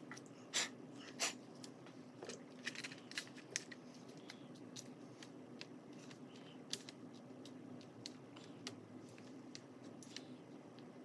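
Light clicks and taps from oil pastels and hands on paper and a plastic pastel tray on a tabletop: two sharper clicks in the first second and a half, a quick run of taps a little later, then sparse soft ticks, over a faint low steady hum.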